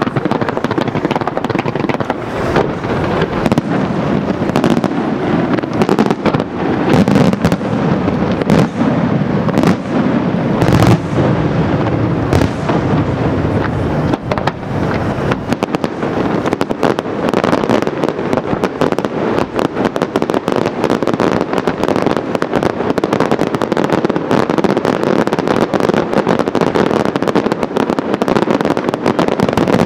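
Fireworks display: a continuous run of aerial shell bursts, with several heavy booms in the first half, then a dense, rapid crackling of many small bursts.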